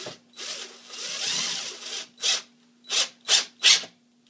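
Power drill driving a wood screw into boards: one run of about a second and a half, then four short trigger bursts as the screw is snugged down.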